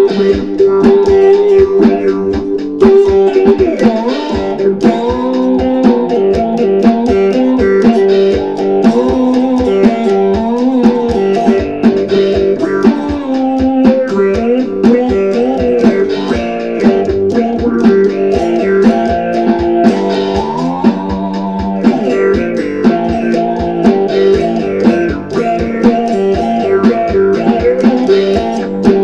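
Electric cigar box guitar playing a funk riff through an auto-wah envelope filter, with notes sliding up and down, over a steady beat.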